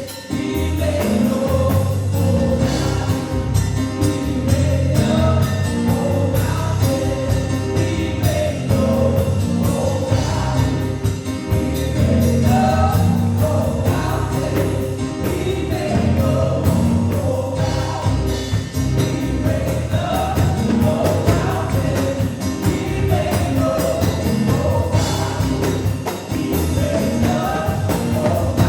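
Gospel worship music: a band with a strong steady bass beat under singers carrying a melody.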